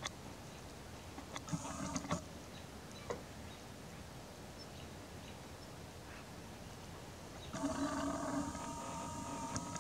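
Lens zoom motor of a Nikon Coolpix P900 whirring, picked up by the camera's own microphone: a short burst about a second and a half in, then running steadily from near the end as the lens zooms back out toward wide angle.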